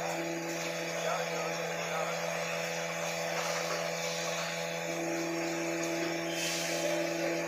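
Facial tissue production line running: a steady machine hum with several constant tones under a broad whir, and a brief hiss near the end.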